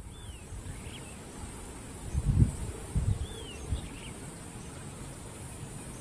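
A few faint, short arched bird call notes, a pair near the start and another pair a little after three seconds, over a steady high hiss. A few low thumps, the loudest sounds, come between about two and four seconds.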